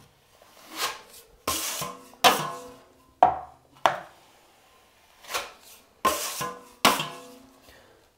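Broad steel drywall taping knife scraping wet joint compound across a drywall patch, smoothing the second coat: about eight separate wiping strokes, some starting sharply and a few with a short ringing tone from the blade.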